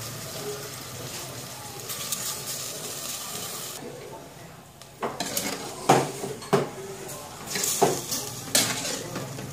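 Pork and bitter gourd sizzling in a stainless steel pot, then being stirred, with a utensil knocking against the pot about five times in the second half.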